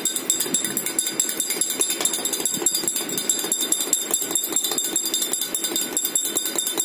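A metal spoon stirring lemonade in a drinking glass, clinking against the glass many times a second with a bright ringing.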